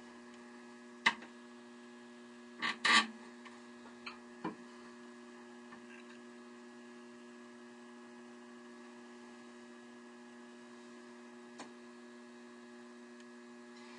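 Sharp knocks and clicks of a turning gouge and the grinder's tool-rest table being handled and readjusted: one loud knock about a second in, a louder double knock near three seconds, two lighter ones soon after and a faint tick near the end. A steady low hum runs underneath.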